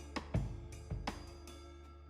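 Background music: a drum beat of evenly spaced hits over held instrumental chords, growing slightly quieter toward the end.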